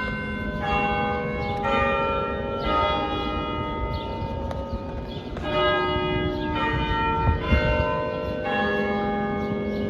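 Church bells chiming the hour melody, one note about every second in four-note phrases of different pitches with a short pause between, each note ringing on into the next.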